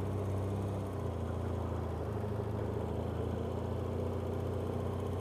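BMW F800GS parallel-twin engine running steadily at low road speed, heard from the rider's seat.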